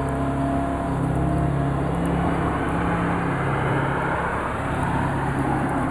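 A vehicle engine running steadily with a low hum, and a broader rush of noise swelling up through the middle and easing off near the end.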